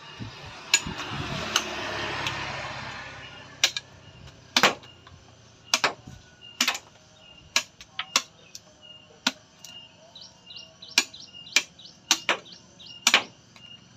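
Machete-type knife chopping at the hard shell of a coconut held in the hand: a series of sharp knocks at uneven spacing, roughly one a second. A rushing noise swells and fades in the first three seconds.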